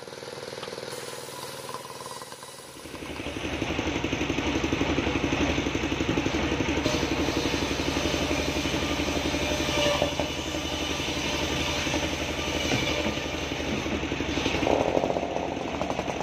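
A small engine running steadily with a fast, even firing pulse. It becomes much louder about three seconds in and stays loud.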